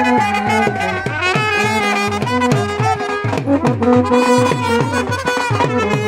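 Indian street brass band playing a tune: trumpets and a large bell-front brass horn sound held notes that step through a melody over a steady, fast drum beat.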